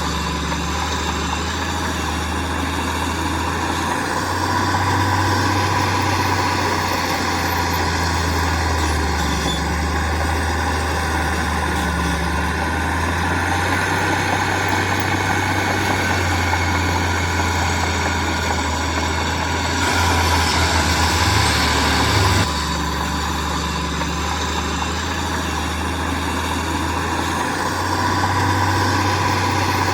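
Heavy diesel engine of earthmoving machinery running steadily, its low drone swelling under load a few seconds in and again near the end, with a louder stretch about twenty seconds in that drops off suddenly.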